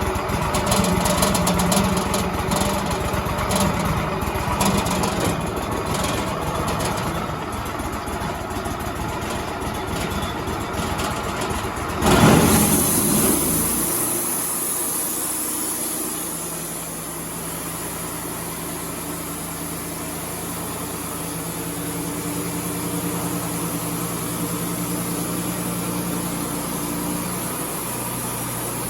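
Wood-Mizer LT35 band sawmill running, with a dense, rattly machine sound. About twelve seconds in there is a brief loud burst. After it the mill runs on as a steadier hum with a high hiss.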